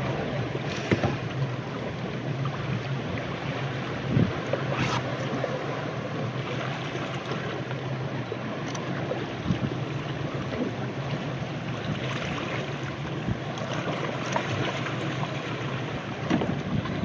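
Wind buffeting the microphone over the steady low hum of a boat's engine, with water noise beneath.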